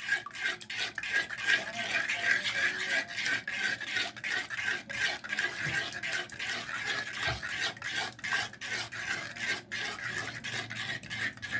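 Metal spoon stirring milk and ghee in a metal kadhai, scraping and clicking against the pan in quick, continuous strokes.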